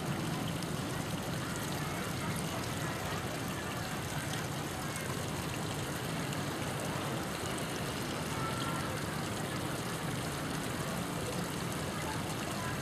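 Steady splashing and trickling of water from a small pond fountain, an even rushing hiss with no breaks.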